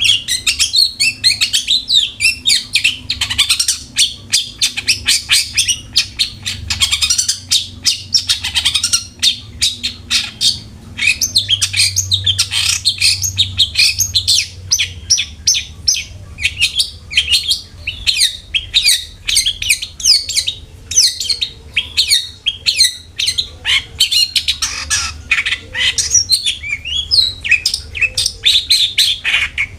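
Long-tailed shrike (cendet) singing non-stop in a rapid, harsh chattering stream of short notes, with no pauses.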